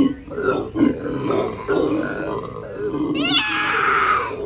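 Black howler monkeys calling: a run of deep, guttural, repeated grunting calls. About three seconds in, a sharply rising, louder and rougher cry follows.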